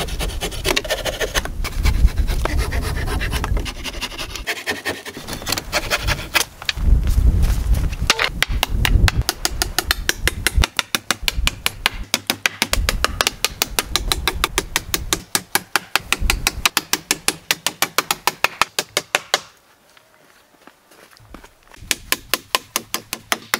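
Background music with a quick, steady tapping beat, with hammer blows on wooden pallet boards under it.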